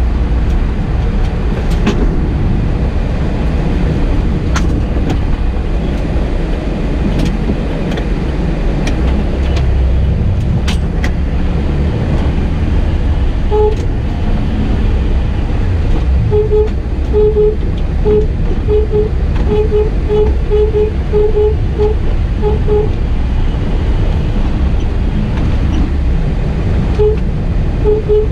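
Car driving, heard from inside, with a steady low road rumble and a few knocks. From about halfway through comes a run of short, same-pitched beeps in irregular groups, with a few more near the end.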